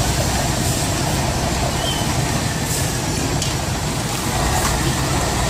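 Steady outdoor street noise with a low rumble of passing traffic.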